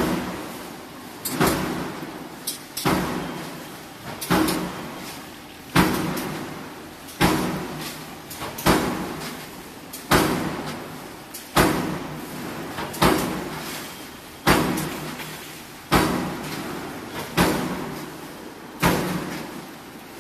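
Power press on an automatic blanking line stroking steadily, about once every second and a half, punching blanks from sheet metal fed off a coil. Each stroke is a sharp metallic bang that rings out and fades before the next one.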